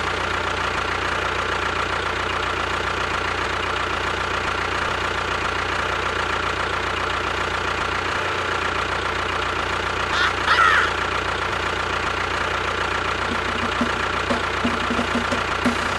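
An engine running steadily at an even level, with a faint steady whine over it. A short chirp comes about ten seconds in.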